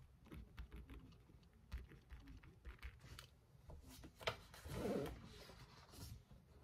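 Light taps and clicks of desk work, such as a stylus or pen on a tablet and small objects being handled, with one sharper click about four seconds in followed by a short rustle.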